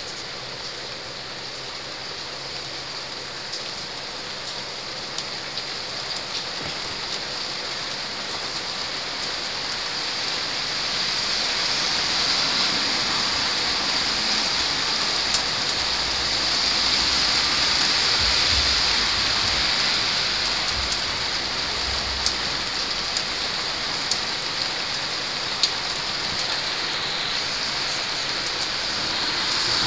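Heavy thunderstorm rain pouring steadily onto roofs, with scattered single drops ticking close by. The downpour grows louder over the first third and then holds steady.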